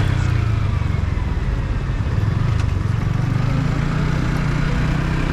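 Stock-exhaust Yamaha MT-15's single-cylinder 155 cc engine running at steady, fairly low revs while riding, over wind noise. The engine note rises a little about three seconds in.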